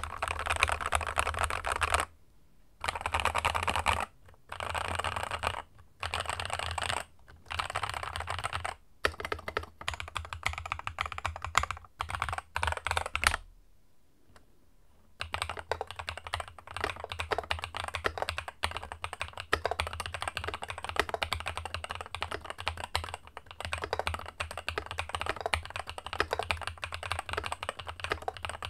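Typing on an Epomaker Brick 87 mechanical keyboard with Epomaker Wisteria linear switches and PBT keycaps. Short fast bursts of keystrokes come with brief pauses, then slower, separate strokes around ten to thirteen seconds in. After a pause of almost two seconds, the typing runs steadily.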